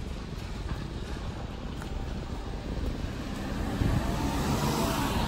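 Outdoor ambience: a low wind rumble on the microphone, with a distant engine hum growing louder over the last couple of seconds.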